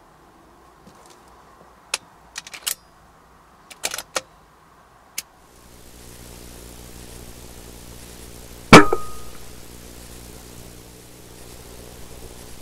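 A few sharp clicks, then a steady low machine hum with a pitched drone sets in near the middle. About two-thirds of the way in, a .22 pre-charged air rifle fires once with a sharp crack, the loudest sound here.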